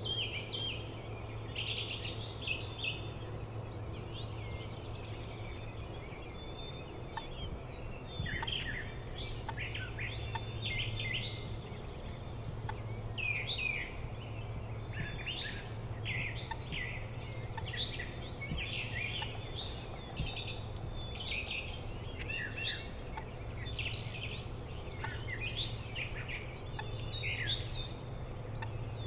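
Birds calling and singing, many short chirps and trills one after another, over a low steady hum.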